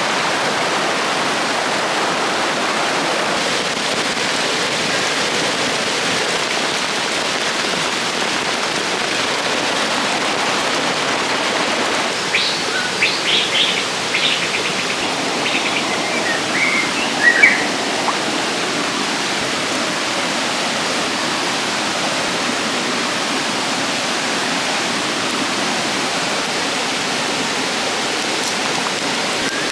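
River water rushing steadily, with a run of short, high bird chirps about halfway through.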